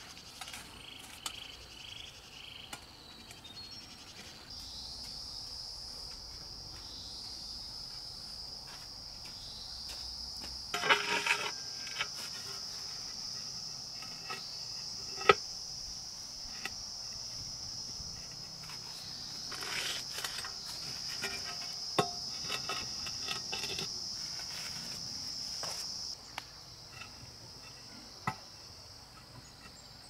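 Insects chirring in a steady high-pitched drone that starts a few seconds in and cuts off near the end. Scattered sharp knocks and short scraping clatters sound over it.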